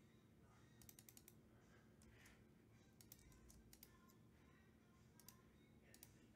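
Faint computer keyboard typing: scattered clusters of light key clicks with near silence between them.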